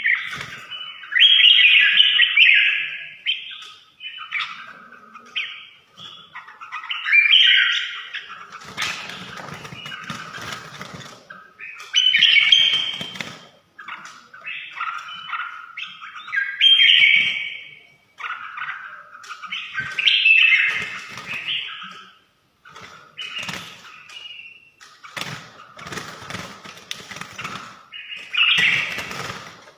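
Red-whiskered bulbul singing: loud whistled phrases repeated every few seconds, with rustling noise between some of them.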